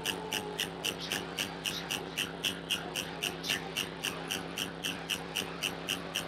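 DIY Triwave Pico drone synthesizer: a steady drone of several held low tones under a sharp, high pulse repeating about four times a second.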